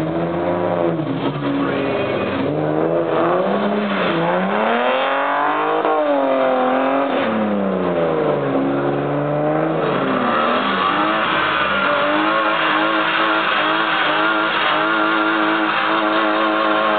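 BMW straight-six engines revving up and down hard as the cars drift on a wet track. From about ten seconds in, an engine is held at steady high revs over the hiss of spinning tyres.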